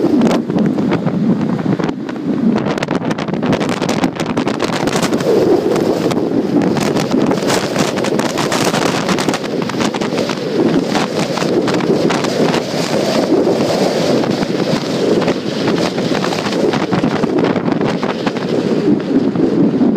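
Jet blast from a departing Airbus A380's four Rolls-Royce Trent 900 engines at takeoff thrust: loud, steady jet noise, with the blast buffeting the microphone.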